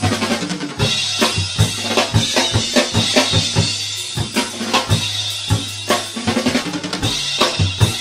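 Instrumental background music with a drum kit keeping a steady beat over a sustained low bass.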